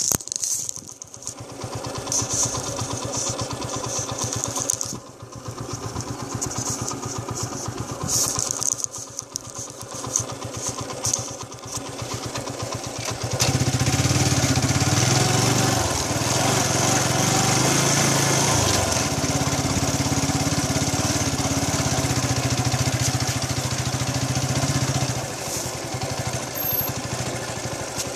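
A motorcycle engine running, fainter with hissy rustling in the first half, then louder and steady from about halfway through, its pitch shifting a little as it moves along the rough track.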